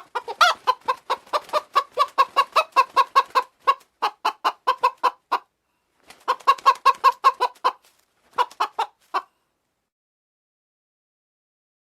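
Silkie chicken clucking in fast runs of short notes, about five a second, in four bursts separated by brief pauses, the last and shortest ending about nine seconds in.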